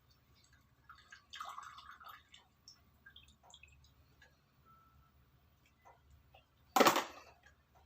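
Liquid dripping as juice squeezed from daun pari leaves is strained into a container, with small scattered drips and a brief rustle about a second and a half in. One short, loud noise comes about a second before the end.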